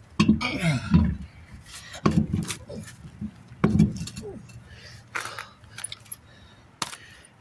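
A few heavy thuds and knocks, then light metallic clicks and clinks.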